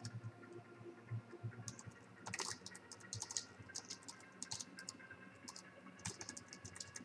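Computer keyboard typing, faint, in irregular bursts of quick keystrokes.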